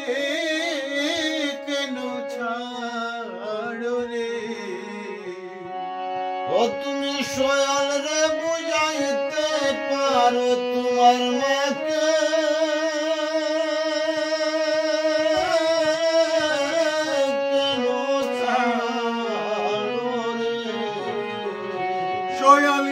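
A man singing a Bengali Nimai geeti devotional folk song in long, wavering held notes, accompanied by a djembe hand drum struck with the palms.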